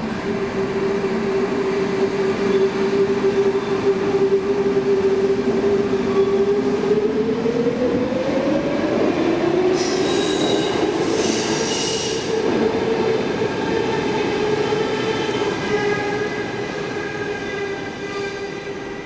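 Stockholm metro train running at the platform, its motors giving a steady whine, with a second whine rising in pitch about seven to nine seconds in. A brief high hiss comes around ten to twelve seconds in.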